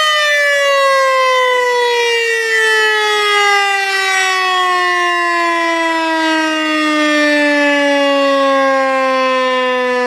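Civil defense siren winding down: one long wail that falls slowly and steadily in pitch the whole time.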